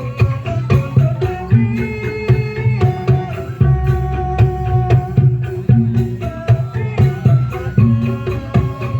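Lively dance music with a steady hand-drum beat under a held, stepping melody line.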